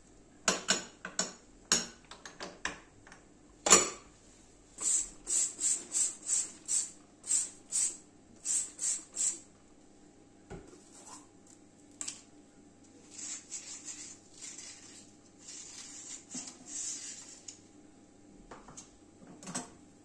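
Metal gas-hob pan supports clattering and knocking against each other and the counter, the loudest knock about four seconds in. Then a trigger spray bottle squirting cleaner about ten times in quick succession, about two squirts a second, followed by softer scrubbing noises.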